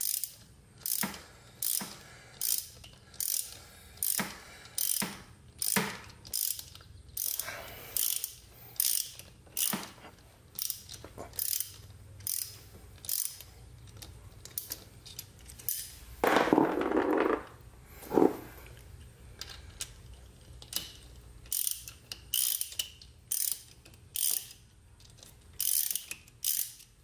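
Hand ratchet clicking in short, regular strokes, a little over one a second, as a thread tap is backed out of a freshly tapped hole in an aluminium engine case. A longer rasping sound breaks the rhythm about 16 seconds in.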